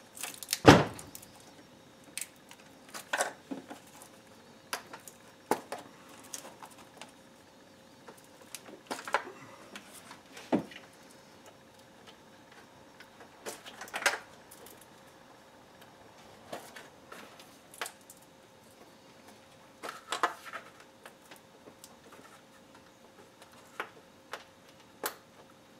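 Plastic electrical connectors being unclipped from a V8's fuel injectors by hand: scattered light clicks and knocks at irregular intervals, the loudest about a second in, over a faint steady hum.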